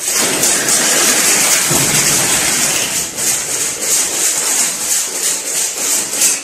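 Steel guide wire (fish tape) rasping as it is worked through the electrical conduit at a wall box: a loud, continuous scraping hiss that starts and stops abruptly.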